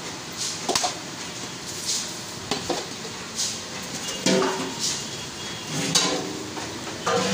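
A butcher's cleaver and knife knocking and scraping on a wooden chopping block as beef is cut and handled, with irregular sharp clicks and short metallic clinks.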